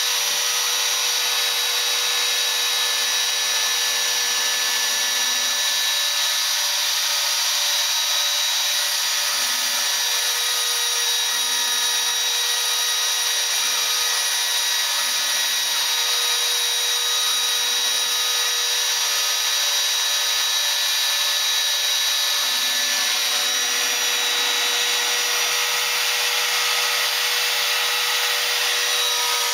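Homemade CNC router running a job: the spindle motor gives a steady high whine over a hiss of cutting, while fainter low stepper-motor tones start and stop every second or two as the axes move.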